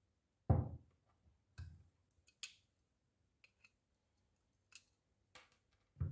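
Metal hand tools clicking and knocking on a wooden workbench as a small steel chainmail ring is held in pliers and punched with a hole-punch pliers: a series of separate clicks and light ticks, with two heavier thumps, about half a second in and near the end.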